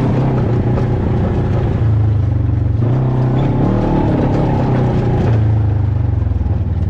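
Off-road vehicle engine running under throttle on a trail, its pitch shifting about three seconds in and again near five seconds.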